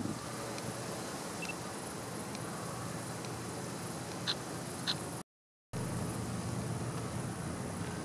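Steady outdoor background hiss and low rumble, with two short high chirps from a small bird a little past the middle. The sound cuts out completely for about half a second just after five seconds, then the same rumble resumes.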